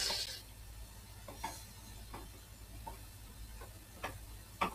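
Computer mouse clicking: a string of short, sharp clicks at irregular spacing, roughly one every half second to a second, the strongest at the start and near the end, over a faint low steady hum.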